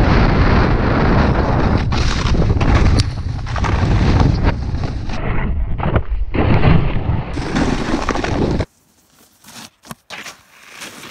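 Wind buffeting a GoPro's microphone and a snowboard scraping over packed snow while riding down a slope, a loud, steady rumble. About nine seconds in it cuts off suddenly to near quiet, with a few faint clicks.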